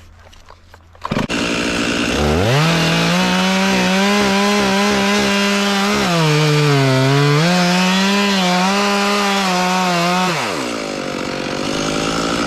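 Two-stroke chainsaw revving up about two seconds in and cutting into a tree trunk at full throttle. The engine pitch sags under load around the middle, then falls back toward idle near the end. This is the felling cut into a leaning tree, with the hinge wood left thick.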